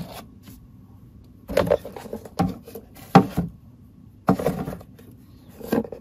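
A plastic reptile hide being handled and lifted out of a plastic enclosure: about five short scrapes and knocks, the loudest about three seconds in.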